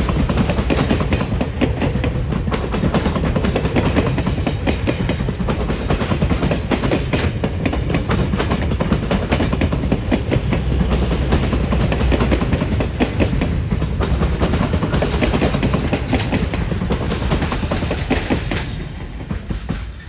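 Train of steam locomotive 2102 rolling past, its car wheels clacking steadily over the rail joints, fading away near the end as the train passes.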